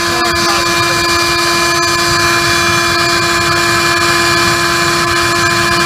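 A wood gasifier's blower, a shop-vac motor and fan, running steadily. There is a high motor whine of several held tones over a rush of air and gas that sounds like a jet engine.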